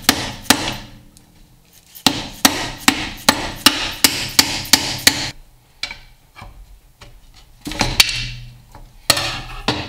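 Dead-blow hammer striking the cast-iron case of a Dana 20 transfer case to knock loose the crusty, stuck rear output shaft housing: two blows, then a quick run of about a dozen at roughly three a second, and a few more knocks near the end.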